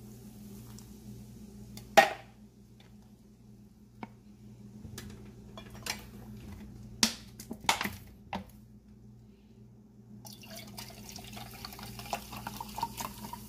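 Soda water poured from a can into rice-flour batter, the carbonation fizzing and crackling in the bowl. Several sharp clicks and knocks, the loudest about two seconds in.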